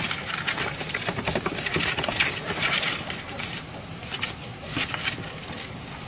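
A nestling bird giving many short, scratchy cheeps while held in the hand, mixed with the rustle of fingers handling it.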